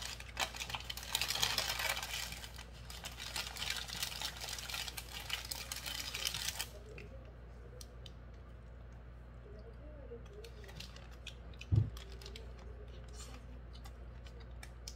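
Paper burger wrapper crinkling and rustling as a cheeseburger is unwrapped, for about the first seven seconds. Then quieter chewing with small mouth clicks, and a single low thump about twelve seconds in.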